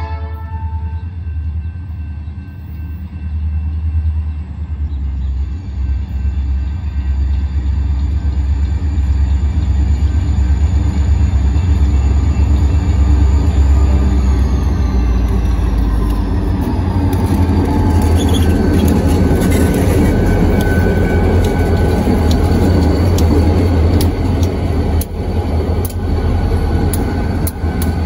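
Diesel freight locomotives (Huron Eastern 3484 leading 3414) running past close by, a heavy engine rumble growing louder as they approach. About halfway through, a high whine drops in pitch as the lead unit goes by, and sharp clicks from the wheels on the rail follow near the end. A horn blast cuts off just as it begins.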